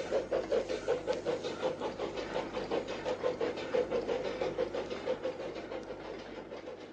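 A 15-inch gauge steam locomotive working, its exhaust beating in a steady rhythm of about four chuffs a second, fading away near the end.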